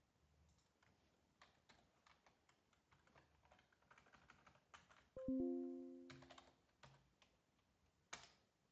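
Faint computer keyboard typing, key clicks in quick runs, with one sharper click near the end. About five seconds in, a short chime of several tones rings out and fades over about a second, louder than the typing.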